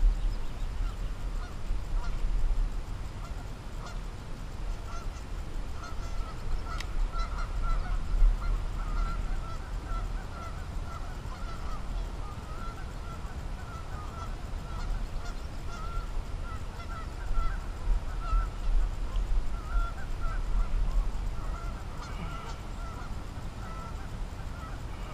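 Geese honking over and over, a long run of short calls that thickens from a few seconds in and goes on nearly throughout, over a steady low rumble.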